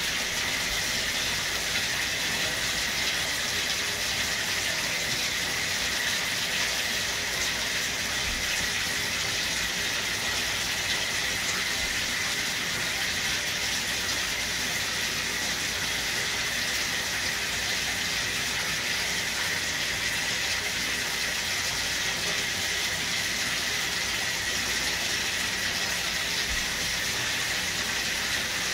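Water running steadily from a bathtub tap, an even rushing that holds without a break.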